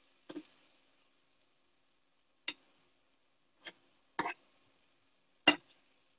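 A utensil knocking against a pan of sautéed cabbage and minced beef as it is dished up: five sharp clinks spread out, the last the loudest.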